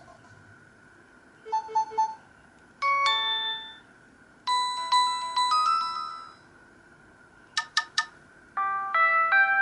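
LG KP500 mobile phone playing a run of short electronic chime tones, about five different ones in turn with brief pauses between. Each is a few bell-like notes lasting a second or two, and one near the end is three quick beeps.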